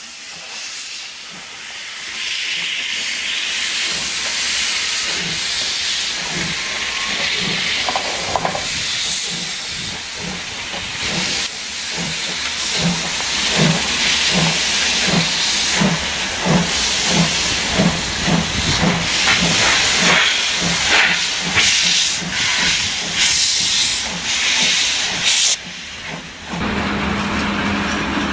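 Steam locomotive starting away: steam hissing, then exhaust chuffs that grow louder and quicker. Near the end the chuffing gives way to a steadier rolling train sound.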